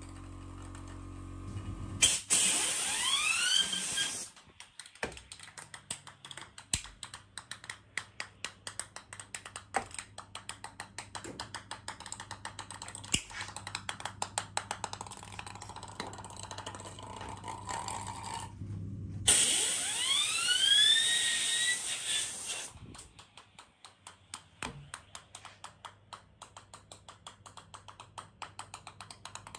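A 3D-printed PLA spinner wheel is spun up twice by blasts from a compressed-air gun. Each blast is a loud hiss lasting two to three seconds, with a whine that rises in pitch as the wheel speeds up. Between the blasts and after them, the freely spinning wheel makes a fast run of clicks as it rolls on the tile floor.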